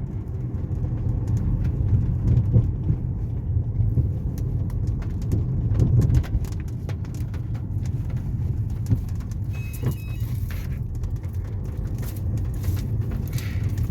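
Ford Fusion being driven on a rough street, heard from inside the cabin: a steady low rumble of engine and tyres, with scattered light knocks and rattles.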